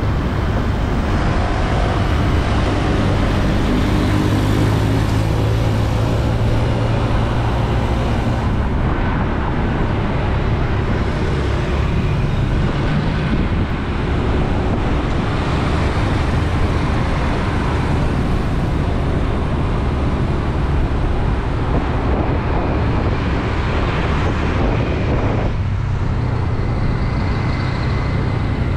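Steady city street traffic heard from a moving bike: the engines of motorbikes and cars mixed with road noise, with a low engine hum that is strongest in the first several seconds.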